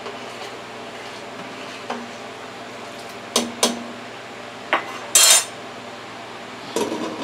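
Metal ladle against a stainless steel stockpot: quiet stirring, then two sharp clinks and a third a second later, a louder clatter just after five seconds, and a few more knocks near the end as the ladle is laid down and the glass lid is handled.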